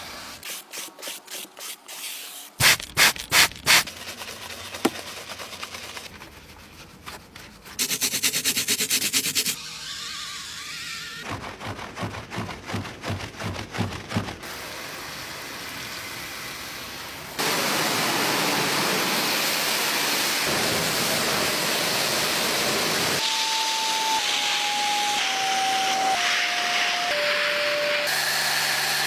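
Car-detailing cleaning sounds one after another: rhythmic wiping strokes on a leather car seat, a few sharp loud clicks, brushing and scrubbing of foam on a grille, then a vacuum nozzle on a carpet floor mat running with a steady hiss for the last dozen seconds. Near the end a falling series of five short tones sounds over the hiss.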